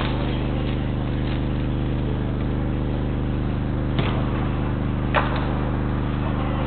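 Steady low hum made of several held tones, with two short sharp knocks about four and five seconds in.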